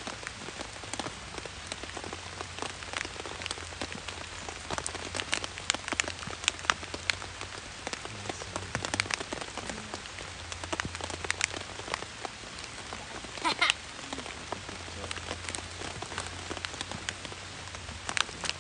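Rain pattering on a tent, heard from inside: a steady hiss with many irregular sharp drop ticks on the fabric, a denser spatter about two-thirds of the way through.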